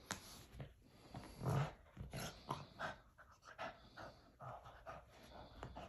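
Boston terrier breathing hard and chewing a slimy toy: irregular short bursts of panting and wet mouthing, the loudest about a second and a half in.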